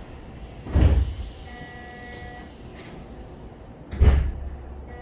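Sliding passenger doors of a Keisei 3100-series train car slamming shut with a heavy thud about a second in, then a second heavy thud about four seconds in. A brief electronic tone sounds between them over the steady hum of the stopped car.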